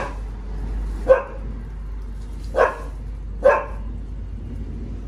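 A dog barking three times, short single barks about a second or more apart, over a steady low hum.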